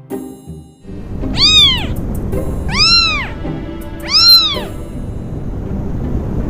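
A cat meowing three times, each meow rising then falling in pitch, about a second and a half apart, over background music.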